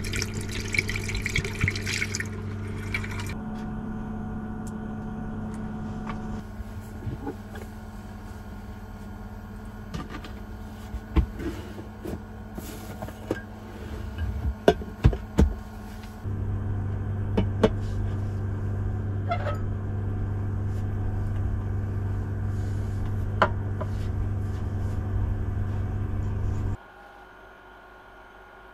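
Water poured from a plastic bottle into a small stainless steel sink for about three seconds, over a steady low electric hum. Later come scattered sharp clicks and knocks of handling, a cluster of them as a car fridge drawer is opened.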